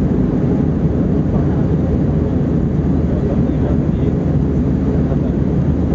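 Steady engine and airflow noise heard inside the cabin of an Airbus A321-231 in flight, from its IAE V2500 turbofans, a constant low rumble with no change in level.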